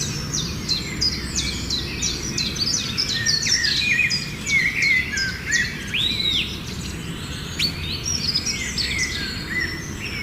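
Many birds chirping and calling at once, a dense run of quick overlapping chirps and short sweeping notes, with a faint steady low hum underneath.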